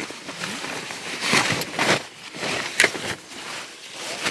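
Rustling and crinkling of a padded jacket being pulled off, in irregular bursts, the loudest about one and a half and three seconds in.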